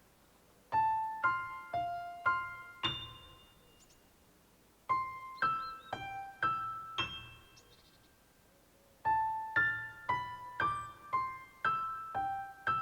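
Gentle piano-like keyboard melody of single struck notes, played in three short phrases with pauses of about two seconds between them; the last phrase starts near the end and moves faster.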